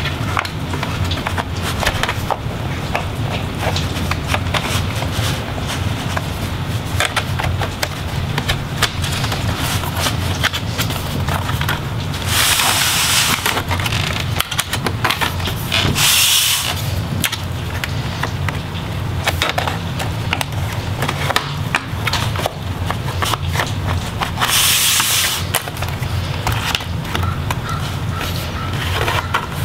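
Plastic bottom cover of an Acer Nitro 5 laptop being worked free by hand: a steady run of clicks and creaks as the snap clips along its edges release, with a few louder, second-long rasps of plastic scraping.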